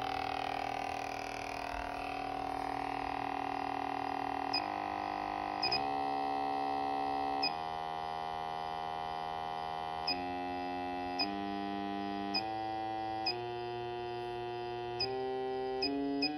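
Buzzy electronic tone from a load driven by a function generator's low-frequency square wave, set between about 80 and 140 Hz. It holds one pitch for about four seconds, then jumps to a new pitch every second or two as the frequency setting is changed. A short high beep comes with each change.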